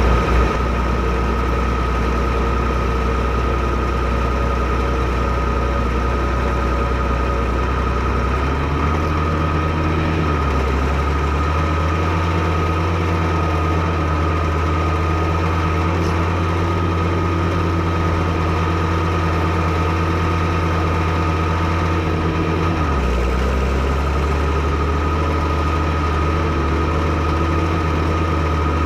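Fiatagri 115/90 tractor's 5.9-litre FIAT six-cylinder diesel running at idle, then brought up to a faster steady speed about eight seconds in, with a brief dip soon after, and dropped back to idle a few seconds before the end.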